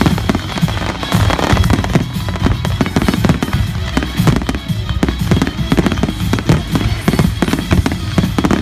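Fireworks display: a rapid, continuous string of bangs and cracks from bursting shells, heard over loud music.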